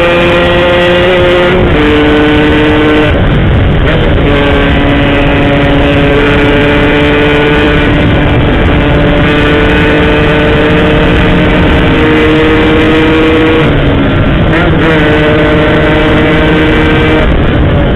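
Yamaha RX-King's two-stroke single-cylinder engine running while riding, its exhaust note holding a steady pitch. The note breaks briefly and steps to a new pitch about two and four seconds in, and again around fourteen seconds.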